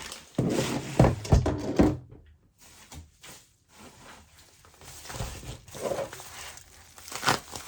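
Handling noise during unboxing: a quick cluster of knocks and rustles as things are moved and set down, quieter rustling, then one more sharp knock near the end.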